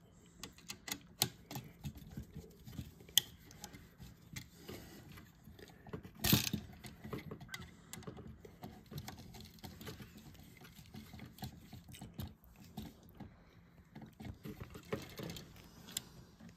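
Small clicks, taps and scrapes of a flat screwdriver and copper wire on a light switch's brass terminal screws as the wires are hooked and screwed down, with one louder knock about six seconds in.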